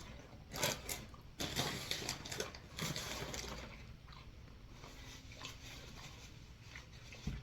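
A person chewing and biting into soft bread close to the microphone, with irregular wet, clicky mouth noises, busiest in the first three seconds and quieter after.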